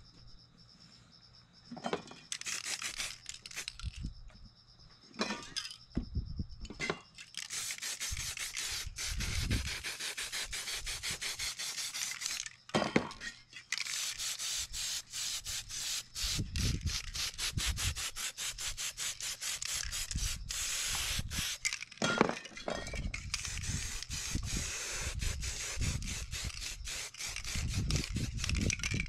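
Aerosol spray paint cans hissing in quick, sputtering bursts, nearly continuous from about seven seconds in with a few short breaks. Scattered low knocks come from the cans being handled.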